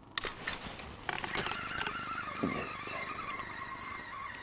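Spinning reel on a feeder rod being wound in, its gears giving a steady whirr from about a second in. A few sharp clicks come at the start, and a low knock about halfway.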